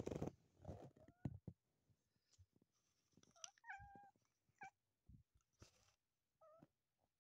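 Calico cat coming into heat, giving a few short meows while being stroked; the longest meow is about three and a half seconds in. A brief rustle right at the start.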